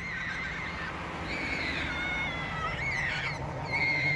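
Several gulls calling, drawn-out overlapping calls that waver slightly in pitch, over a steady low rumble.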